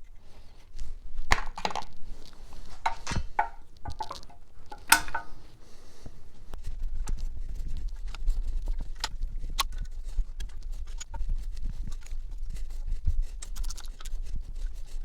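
Metal hand tools and engine parts clinking and clanking while a V8 engine is being taken apart: a cluster of sharp ringing clanks in the first few seconds, then scattered lighter clicks over a low rumble.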